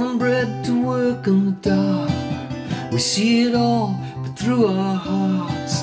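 Steel-string acoustic guitar strummed, with a man's voice singing a melody over it in a folk song.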